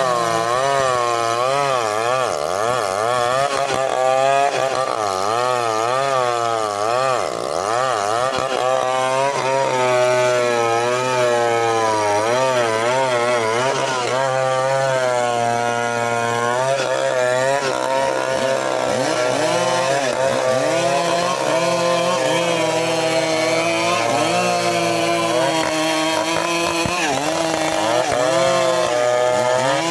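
Two two-stroke chainsaws, a Stihl MS 381 among them, running together while ripping a large trembesi log lengthwise. Their engine pitch keeps rising and falling as the chains load up in the wood and rev free.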